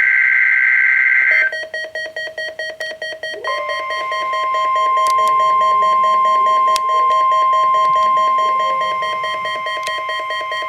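NOAA Weather Radio EAS/SAME alert tones. The warbling data burst of a SAME header ends about a second and a half in, followed by a rapid beep pulsing about five times a second. About three and a half seconds in, a steady high tone near 1 kHz comes in on top: the warning alarm tone that precedes the weekly test message.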